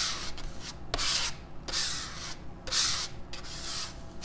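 A small card scraped across paper in repeated strokes, about one a second, spreading a layer of paint: a dry, hissing rub with each pull.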